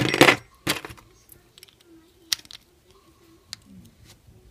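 Small hand tools and parts being handled on a workbench: two short, loud scraping noises near the start, then a few light clicks and taps.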